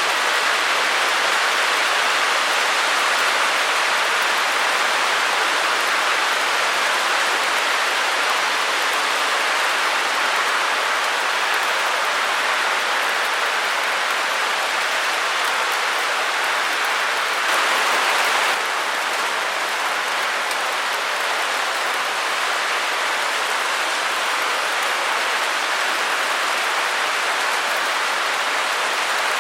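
Steady white-noise hiss, even and unchanging, with a brief slightly louder swell about two-thirds of the way through.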